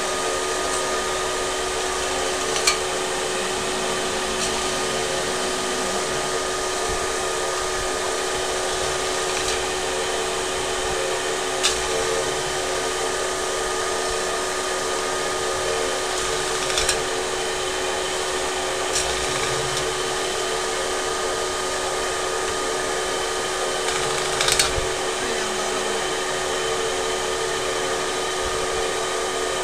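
Metal spinning machine running steadily as its forming rollers press a spinning aluminium blank over the mandrel into a pot: an even whirring hum with a constant tone. A few short, sharp clicks sound now and then.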